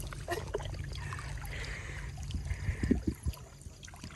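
Shallow seawater trickling and lapping among rocks in a tide pool, over a steady low rumble, with a few soft knocks about three seconds in.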